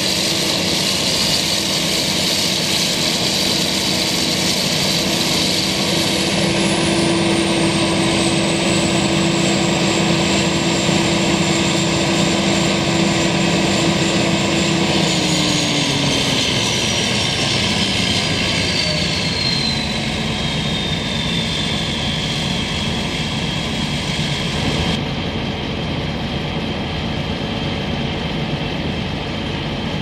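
Claas Jaguar 980 self-propelled forage harvester chopping maize for silage: its engine and cutterhead run loud and steady under a high-pitched whine. About halfway through, the engine note and the whine both fall in pitch and settle lower, as the machine slows down.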